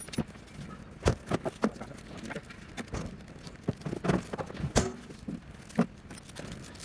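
Irregular knocks and clicks from hard parts and tools being handled, about ten over several seconds with no steady rhythm.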